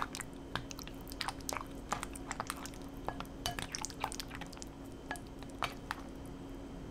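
A spatula stirring and folding a soft butter mixture in a glass bowl: irregular wet squishes and light clicks of the spatula against the glass.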